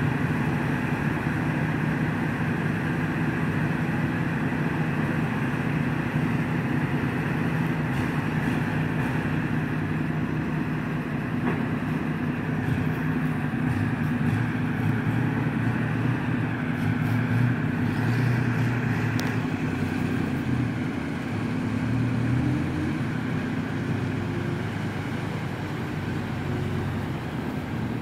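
Ward LaFrance Series 2 truck engine running steadily at low revs, with a deep, even drone.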